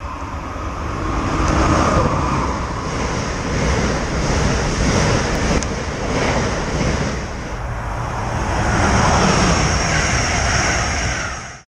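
Passenger train passing close at speed: a steady rumble of wheels on rail with a rush of air, swelling and easing as the cars go by, cut off suddenly at the end.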